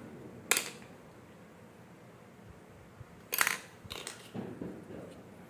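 Sharp clicks and a brief clatter of small plastic parts being handled and set down: one click about half a second in, a louder clatter a little after three seconds, then lighter clicks and rustling.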